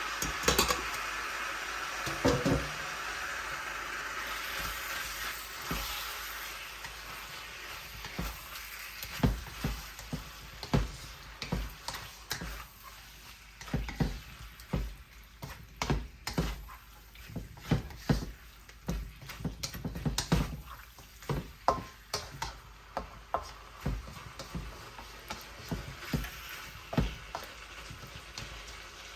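Quail pieces sizzling in hot oil in a pan, the hiss loudest in the first few seconds after the meat goes in and then easing. A spatula knocks and scrapes against the pan many times at an uneven pace as the meat is stirred.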